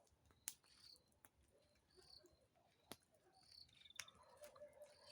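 Quiet night ambience by a campfire: faint high chirps repeating about every second and a half, and three sharp pops from the fire.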